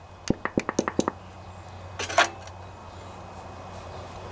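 Light metallic clicks and clinks, a quick run of about seven in the first second, from new steel valve lifters being handled and fitted into the crankcase of a Briggs & Stratton single-cylinder OHV Intek engine. A short scraping rustle comes about two seconds in.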